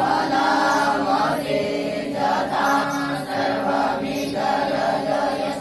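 Young Vedic students chanting Sanskrit Vedic mantras together in a steady, sing-song recitation.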